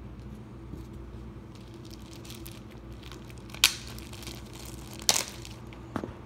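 Soft tearing and crinkling as hands work a bread roll apart, over a steady low hum. Two sharp clicks stand out, about three and a half and five seconds in.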